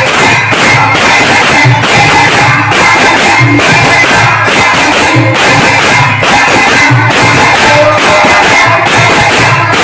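Loud, dense music with a steady drumbeat.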